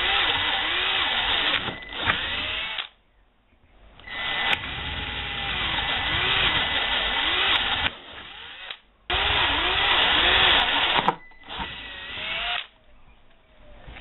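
Milwaukee cordless drill boring quarter-inch holes through a clear plastic panel. It runs in four bursts of a few seconds each, with short pauses between holes.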